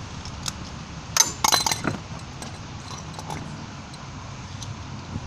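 Hand tools clinking and rattling against the motorcycle's metal parts while a fastener is worked loose. A quick cluster of clinks comes about a second in, then a few lighter scattered clicks.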